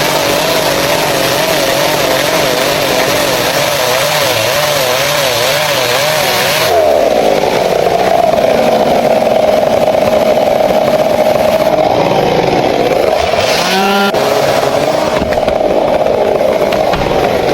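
Chainsaw running at high revs while cutting into a tree, its pitch wavering up and down under load. The sound changes abruptly about seven seconds in, and the engine revs briefly back up near the end.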